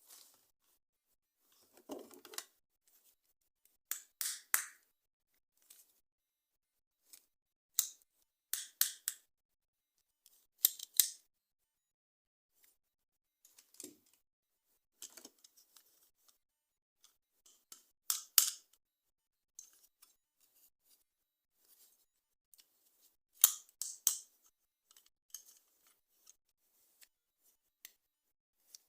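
Toy packaging being opened by hand: short, crisp snips and crackles of plastic and card, in bursts every couple of seconds with quiet gaps between.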